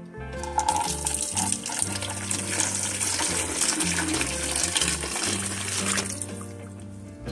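Chicken bone broth poured through a fine mesh strainer: a steady splashing pour that starts just after the beginning and stops about a second before the end. Background music plays underneath.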